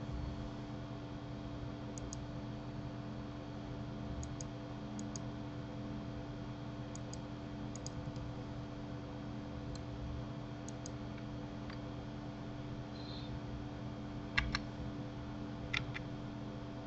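Computer mouse and keyboard clicks: short click pairs every second or two, the loudest pairs near the end, over a steady low hum.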